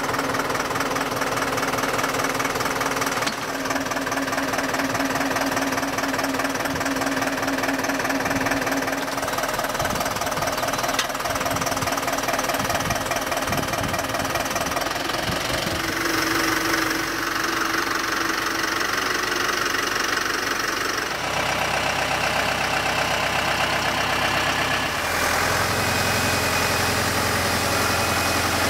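Deutz-Fahr tractor's diesel engine running steadily under light load. The pitch and tone change abruptly several times.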